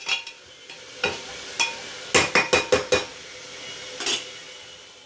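A spoon stirring sautéing broccoli and carrot in a pressure cooker, clinking against the pot: scattered single knocks, then a quick run of about six in the middle, over a faint sizzle of the vegetables frying in oil.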